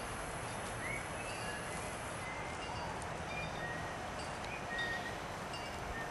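Steady outdoor rustle of wind in grass and trees, with a few faint, short, high bird chirps.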